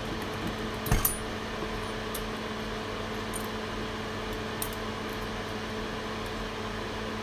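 Steady fan hum from the microsoldering bench equipment, with one sharp metallic clink of a tool about a second in and a few faint light ticks after it.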